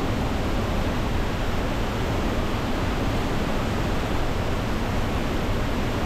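Kaminari-daki waterfall roaring steadily, a dense, unbroken rush of falling water, its flow swollen by the previous day's rain.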